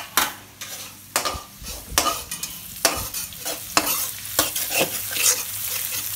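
A metal spatula scrapes and clinks against a steel kadai, about every half second and irregularly. Chopped spring onion whites and ginger-garlic paste are being stir-fried in hot oil, which keeps up a steady sizzle underneath.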